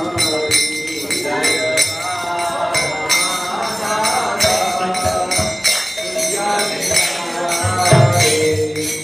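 A man singing a devotional chant, keeping time on small brass hand cymbals (karatalas) struck in a steady rhythm, with a low thud near the end.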